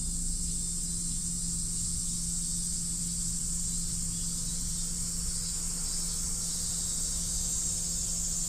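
Steady high-pitched insect chorus, with a steady low hum underneath.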